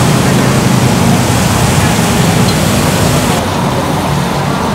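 Steaks sizzling on a flat steel griddle, a loud, dense, steady hiss. A little over three seconds in it turns softer and duller, the bubbling hiss of a pot of oil deep-frying.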